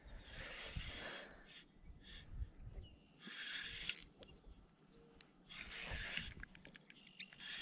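Spinning reel being cranked in short bursts while a fish pulls on the line, with fabric rustling against the camera. A quick run of sharp clicks comes near the end.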